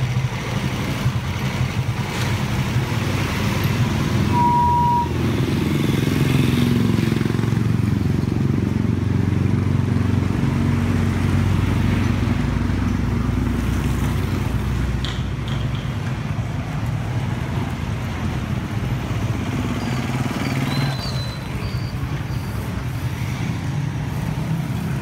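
Street traffic: a steady low engine hum from motor vehicles, with motorcycles passing, and a brief high beep about four seconds in.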